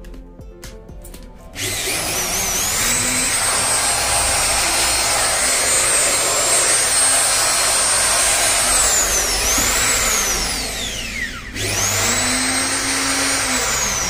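8012 wood router's motor, fitted with a new armature and carbon brushes, test-run: switched on about a second and a half in, it whines up to full speed and runs steady, then is switched off and spins down with a falling whine, and is switched on again near the end and runs back up to speed.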